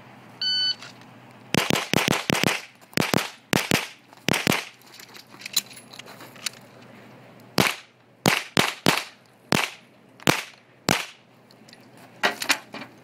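A shot timer beeps once to start the timed stage, then a Smith & Wesson M&P pistol fires about twenty shots in quick pairs and strings with short pauses between them.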